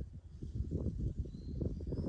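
Gusty low rumbling of wind buffeting the microphone, with a bird's faint, thin whistle starting about halfway through.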